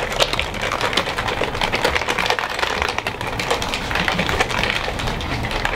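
Metal cocktail shaker being shaken hard, its contents rattling in a fast, steady clatter.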